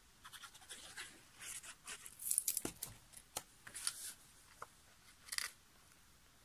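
Cardstock being handled: light rustling and a few soft taps and clicks as a decorated card front is laid onto a folded card base and pressed down flat.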